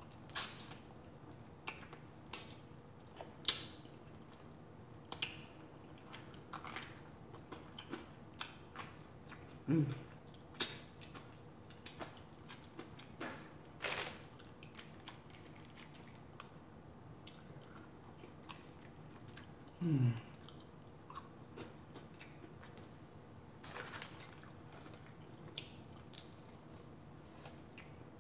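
Close-miked chewing and biting of french fries and crispy fried chicken wings, with scattered short crunches and mouth clicks. Two brief falling hums of the voice come about ten and twenty seconds in.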